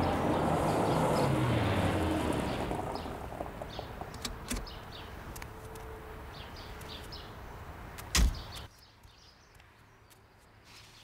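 Red Audi A4 saloon rolling up and slowing to a stop, its engine and tyre noise fading over the first few seconds. There are a few light clicks and small bird chirps, then a car door shuts with a loud thump about eight seconds in.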